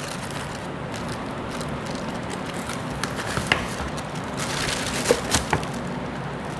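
Steady crackling and rustling of plastic wrapping and foam packaging as an airsoft rifle is lifted out of its box, with a few light knocks around the middle and later on.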